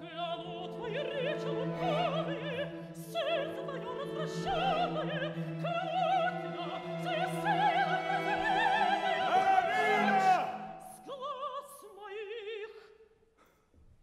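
Mezzo-soprano opera voice singing with wide vibrato over a sustained orchestral note. It builds to a loud held high note that cuts off about ten seconds in, followed by a few short, quieter phrases that die away.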